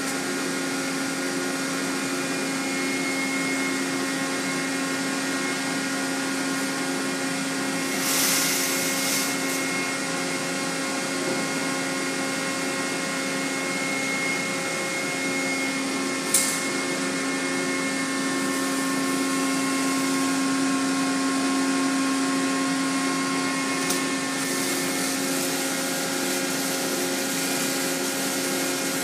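Centrifugal finishing machine running with a steady hum of several held tones over a hiss. A burst of spraying hiss comes about eight seconds in, a sharp click about halfway through, and a longer spell of spray hiss near the end.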